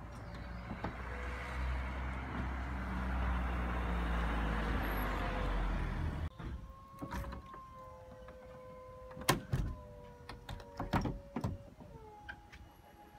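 BMW M4 Convertible's electric side windows rising with a steady motor hum that cuts off suddenly about six seconds in. Then the retractable hardtop mechanism runs with a thin whine and a few sharp clicks and knocks as the boot lid opens and the roof panels start to lift.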